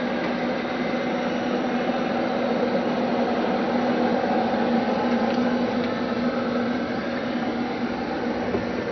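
Steady whir of spacecraft cabin ventilation fans: an unbroken hiss with a constant low hum.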